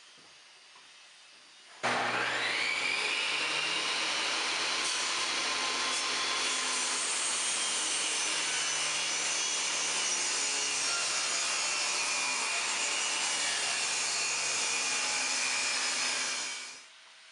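Table saw switched on, its whine rising as the motor comes up to speed, then running steadily while it rips a bevel along a wooden board with the blade tilted to about 34 degrees. The sound drops away quickly near the end.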